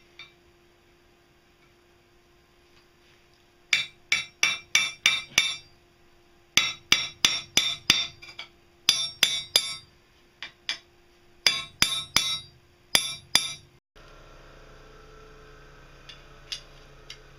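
Hammer blows on steel, about two dozen sharp strikes in quick runs of two to six, each with a bright metallic ring, on a thin steel rod held upright in a hole of a steel plate.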